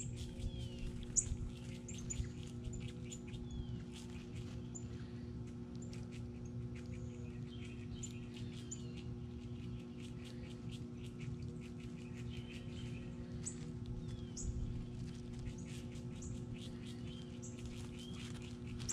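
Small backyard birds chirping, many short high calls and quick pitch slides scattered throughout, with light ticking and a steady low hum underneath.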